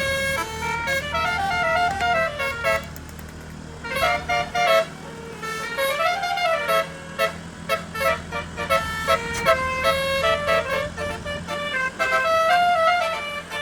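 Bus telolet horn with 18 trumpets and 18 notes playing a stepped melody, with a short break about three seconds in. A steady low engine hum runs underneath.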